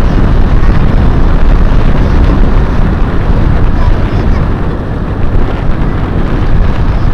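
Loud, steady wind buffeting on the microphone of a moving vehicle, a deep rumbling roar with road and vehicle noise beneath it.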